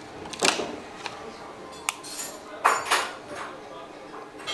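Crisp papadum being snapped and broken by hand: a few separate crackling crunches, with a single sharp click of tableware just before two seconds in.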